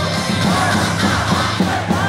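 Baseball stadium cheer song for a batter played loud over the PA, with crowd voices chanting along.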